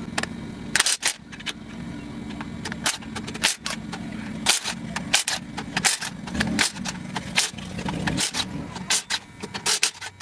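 Socket wrench working bolts on an LS V8 engine block, with sharp metallic clicks and clanks at irregular intervals over a steady low hum.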